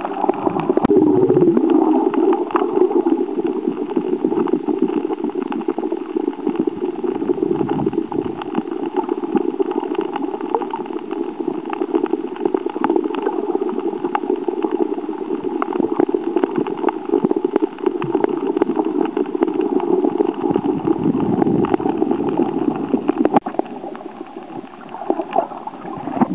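Muffled water gurgling and sloshing around a camera underwater, with scattered faint clicks; it eases off near the end.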